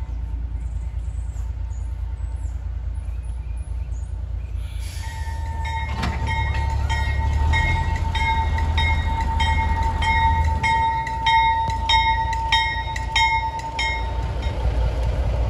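Locomotive bell ringing steadily, struck a little under twice a second, starting about five seconds in and stopping shortly before the end, over a low rumble.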